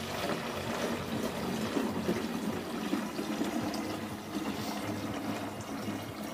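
Water pouring in a steady stream from a plastic canister into a bucket: about 3.5 litres of mixing water for bagged mortar.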